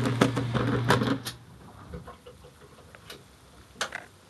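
Small washing machine running with a steady motor hum and fast rattling clicks, cutting off about a second in. A few faint clicks follow near the end.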